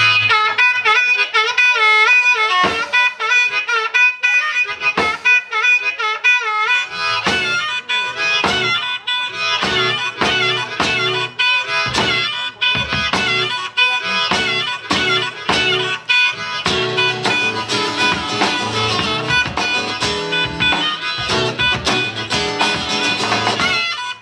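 Live blues harmonica solo with bending, wavering notes over acoustic guitar. A drum kit comes in with scattered hits a few seconds in, then settles into a steady beat.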